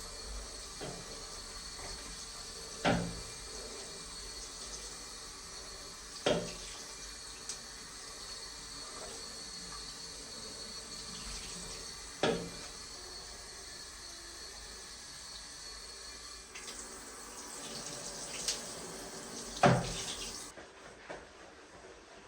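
A tap running water into a sink in a steady stream that shuts off near the end, with four sharp knocks of objects set down or bumped, the last one the loudest.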